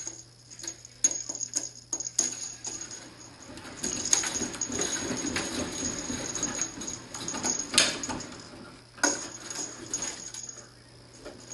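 Cat exercise wheel turning under a cat's steps, a denser rolling rumble from about four to eight seconds. Scattered taps and knocks of paws and claws on the wheel track run throughout, with one sharp knock near the end of the rumble.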